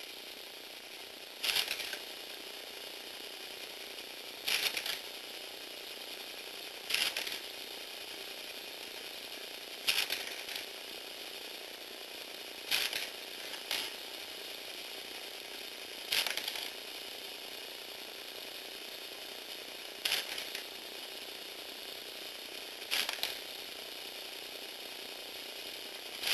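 Motorised Lego Technic shooter mechanism: a small electric gear motor whirs steadily while the plastic parts give a sharp clack-clatter about every three seconds as the mechanism trips.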